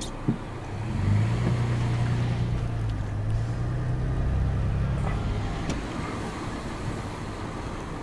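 Car driving, heard from inside the cabin: steady road and engine noise, with a louder low hum from about a second in until about five and a half seconds.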